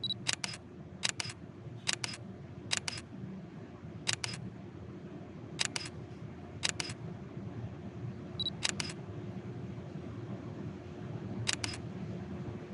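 Single-lens reflex camera taking single shots: nine shutter releases at irregular gaps of about a second or more, each a quick double click. A short autofocus-confirm beep comes just before the first shot and again just before the shot about eight and a half seconds in, over a low steady background hum.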